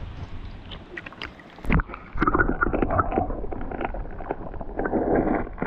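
Creek water sloshing and splashing around a person's legs while wading. It is quieter at first, with a knock just before two seconds in, then louder and uneven.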